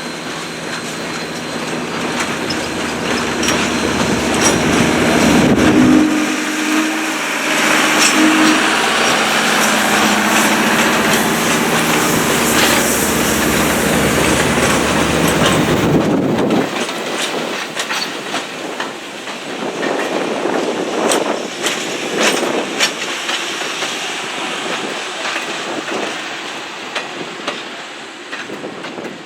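Southern 630, a 2-8-0 steam locomotive, and its train passing. The sound builds over the first several seconds as the engine comes by. After that the cars roll past with a clickety-clack over the rail joints, fading near the end.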